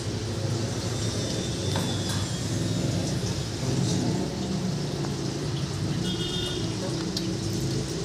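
A steady low mechanical hum, like a motor or engine running, with a few faint short high-pitched chirps about six seconds in.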